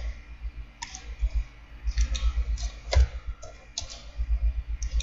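Irregular clicks of a computer mouse and keyboard, about half a dozen of them, over a low hum.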